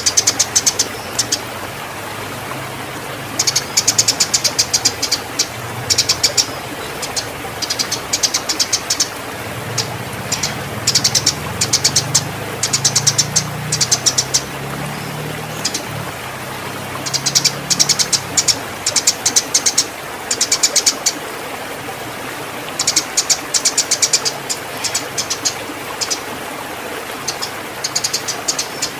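Eurasian tree sparrows chattering in fast, high bursts of chirps, over and over, the excited calls of fighting sparrows in breeding condition. A steady background hiss runs underneath, with a low hum partway through.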